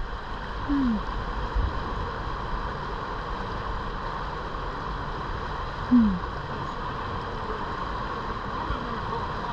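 Steady rush of river current pouring over a shallow rock ledge in a riffle. A short falling voice call comes about a second in, and a louder one near six seconds.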